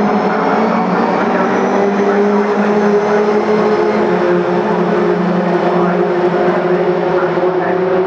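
A pack of Ginetta race cars accelerating away together from the race start, many engines running at once in a loud, steady drone.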